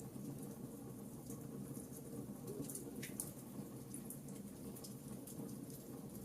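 Campfire burning with a low steady rush and scattered sharp crackles and pops, one louder snap about three seconds in.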